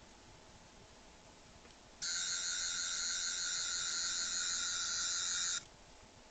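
Toy sonic screwdriver's electronic sound effect: a steady, high buzzing tone that starts about two seconds in and cuts off after about three and a half seconds.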